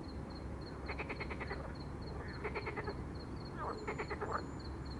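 Frogs croaking in a spring mating chorus: three rattling calls, each a quick run of clicks lasting about half a second, about one, two and a half and four seconds in.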